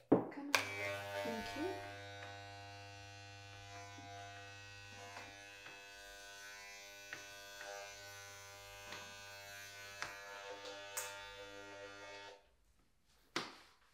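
Corded electric hair clippers switching on about half a second in and running with a steady buzz while cutting hair, with light scattered clicks, then switching off near the end.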